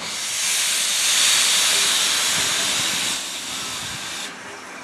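Steam locomotive letting off steam: a loud, high hiss that swells over the first second, eases after about three seconds and cuts off suddenly near the end.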